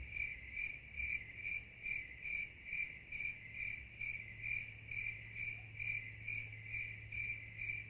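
Crickets chirping steadily, a little over two even chirps a second: the stock 'crickets' sound effect for an awkward silence after a joke.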